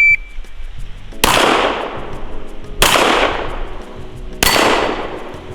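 A shot timer beeps once at the start, then a firearm fires three single shots about a second and a half apart, each with a long echoing tail.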